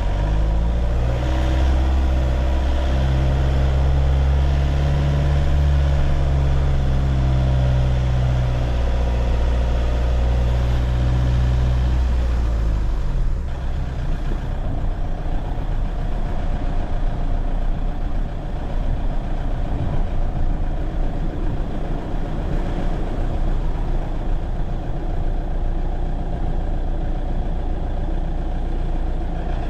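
A motor vehicle's engine runs with a strong low hum for roughly the first half. That hum fades out, leaving a steady rumble of road and traffic noise.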